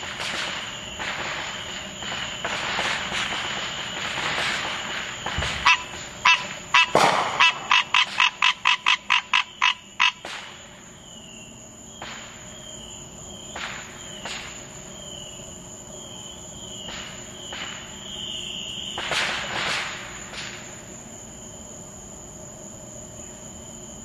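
Green tree frog calling a fast run of about a dozen loud, evenly spaced notes, about three a second, for some four seconds near the middle. Before and after it, distant fireworks pop and crackle with scattered bangs.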